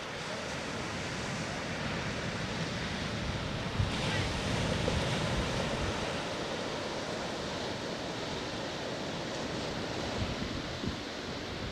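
Ocean surf washing onto the beach as a steady rush, swelling as a wave breaks about four seconds in. Wind knocks on the microphone a few times.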